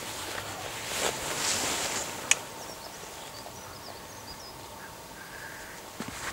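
Quiet outdoor ambience with faint high bird chirps. A brief rustle comes about a second in, followed by a single sharp click a little after two seconds.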